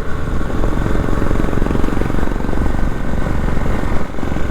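Motorcycle engine running at a steady pace while riding, with wind rushing over the helmet-mounted camera's microphone.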